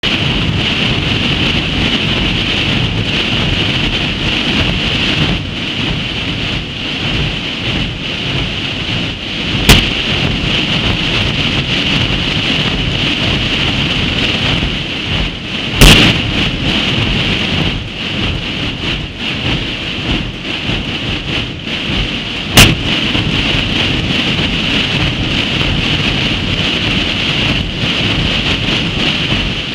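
Hundreds of drums, snare drums and big bass drums, played together without a break. The result is a dense, continuous rolling rumble with a rattling edge. Three sharper, louder cracks stand out about a third, halfway and three-quarters of the way through.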